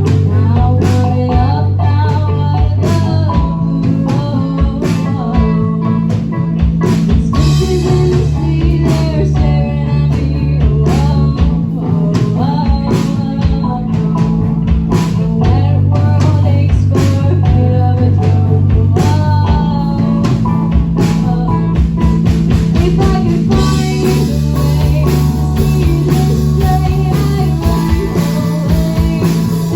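Rock band playing a song live: electric guitar, bass guitar and drum kit, the bass moving to a new note about every four seconds under a steady drum beat.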